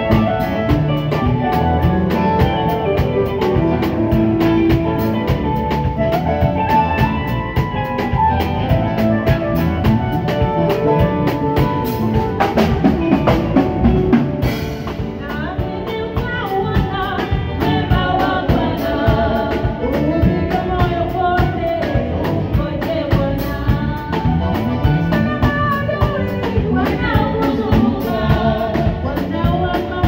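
A small praise band playing live: drum kit, electric bass and keyboard with a steady beat, and women singing into microphones over it.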